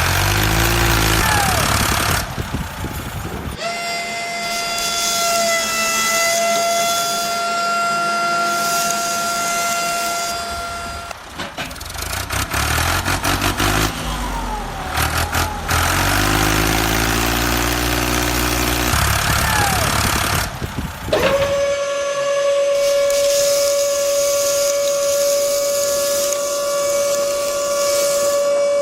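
Truck engine running with changing pitch, broken by two long steady horn blasts: one from about four seconds in lasting about seven seconds, and a lower-pitched one starting about 21 seconds in and holding to the end.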